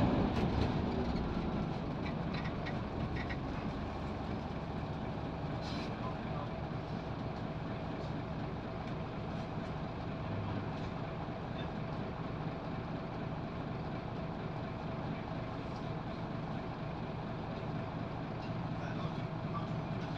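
Scania L94UB Wright Solar bus heard from inside the saloon. The diesel engine and road noise die down over the first two seconds as the bus slows, then the engine idles with a steady low hum while the bus stands still.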